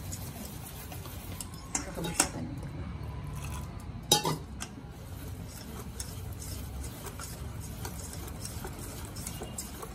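Wire whisk beating thick gram-flour dhokla batter in a stainless steel bowl: steady rapid clicking and scraping of the wires against the bowl, with two louder metal clinks about two and four seconds in. The batter is being beaten to make it light and spongy.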